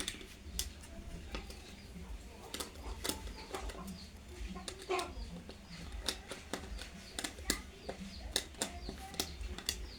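Irregular light clicks and taps of electrical cable and switch fittings being handled while wiring a switch, over a steady low hum.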